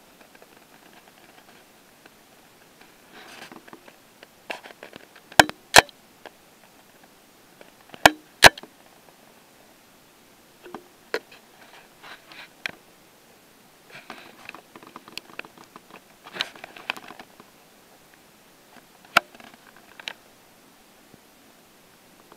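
A camcorder being handled and set up: rustling and scraping with sharp clicks, the loudest coming as two quick pairs a few seconds in and a single click later on.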